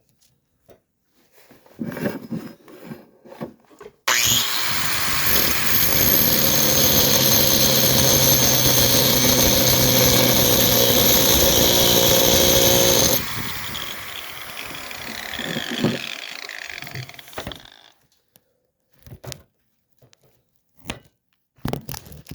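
Handheld power tool running hard for about nine seconds with a steady high whine, starting suddenly, then dropping and winding down over a few seconds, used on the motorized bicycle's exhaust pipe. A few light knocks of handling come before and after.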